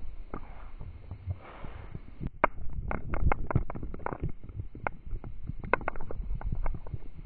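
Metal chain of a spinning poi rattling in many short, irregular clicks, over a low rumble of wind buffeting the camera's microphone as it whirls.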